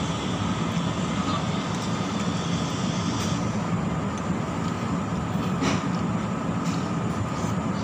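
A steady low machine drone, with a short clink of a metal spoon against a ceramic soup bowl about five and a half seconds in.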